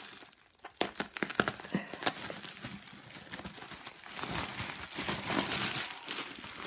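Plastic bubble wrap crinkling and rustling as it is cut and pulled open with a utility knife: a run of sharp crackles about a second in, then a denser rustle a few seconds later.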